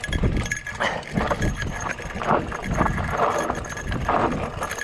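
Mountain bike rolling down a dry dirt singletrack: tyres on the dirt and the bike rattling over bumps in uneven bursts, with wind buffeting the microphone.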